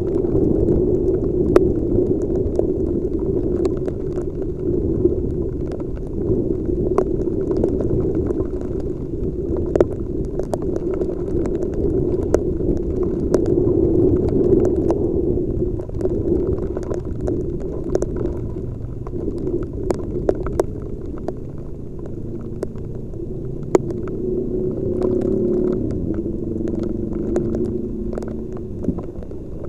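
Steady, muffled low rumble of a motorcycle ride in heavy rain, picked up by a helmet-mounted camera's microphone, with scattered sharp ticks of raindrops striking the helmet and camera.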